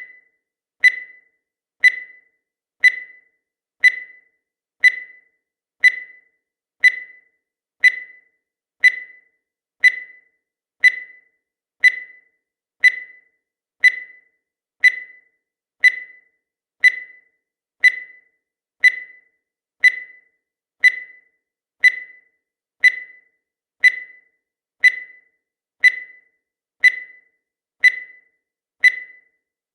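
Countdown timer sound effect: a short, high electronic beep once every second, each one sharp at the start and fading fast, with silence between beeps.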